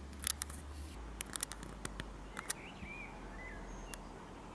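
Quiet outdoor ambience with a steady low hum, scattered sharp clicks and a few short bird chirps.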